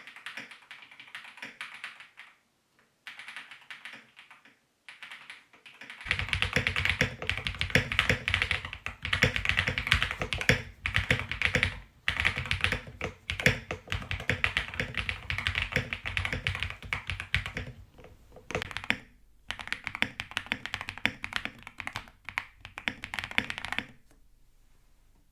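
Fast typing on a spring-mounted Owlab Link65 custom mechanical keyboard with an FR4 plate, lubed and filmed Graphite Gold switches and OTC keycaps: a dense run of clicky, poppy keystrokes. It starts in short bursts, then about six seconds in turns louder and fuller with much more bass as the recording mic changes, changes character again near nineteen seconds, and stops shortly before the end.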